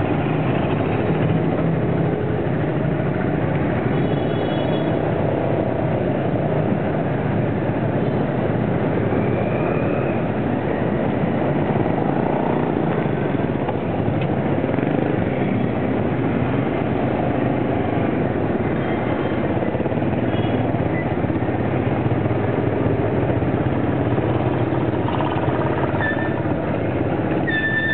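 Dense street traffic of small motorbikes and scooters running and passing close by, with cars among them, making a steady mix of engine noise. A few brief high-pitched tones come through, about four seconds in and again near the end.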